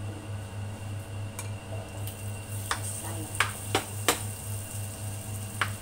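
About five sharp clicks and clinks of a spatula and ceramic bowl against a non-stick frying pan as raw shrimp are tipped in, the loudest a few seconds in. Under them runs the steady low hum of the induction cooktop, pulsing about four times a second.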